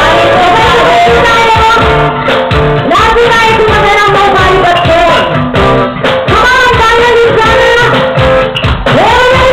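Two women singing into microphones over loud live band music, long sustained sung notes bending in pitch over a steady beat.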